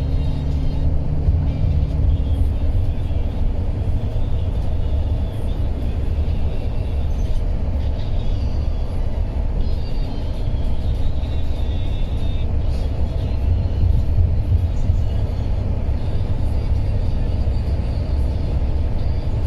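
Steady low rumble of a passenger coach driving along a highway, with music faintly mixed in.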